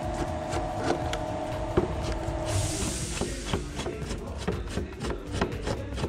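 Tool clicks, knocks and scraping on metal as the screws holding a car radiator fan motor are taken out, over a steady hum that stops about halfway through, just after a short hiss.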